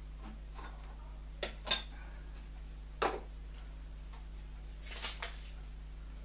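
Light clinks and knocks of small tins, lids and containers being handled and set down on a wooden tabletop. There are about five sharp taps: a pair about a second and a half in, one near three seconds, and another pair near five seconds.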